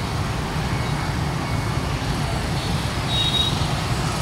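Steady traffic noise from a jam of motorbikes and cars crawling in rush-hour traffic: a dense low engine rumble under a hiss of road noise, with a brief high beep about three seconds in.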